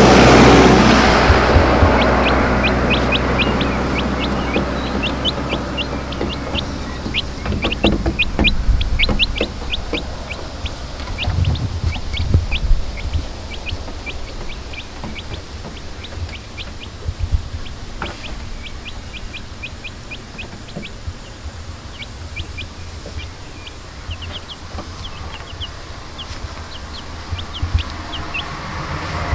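Birds chirping rapidly and continuously in short high calls, over a low vehicle-engine rumble. The rumble is loudest at the start, fades over the first several seconds, and swells again near the end.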